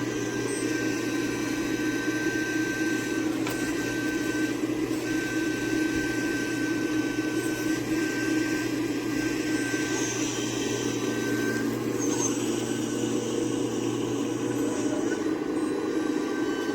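Hydraulic pump of a radio-controlled 6015B excavator running steadily, giving a constant electric whine and hum while the machine digs, with a few faint ticks.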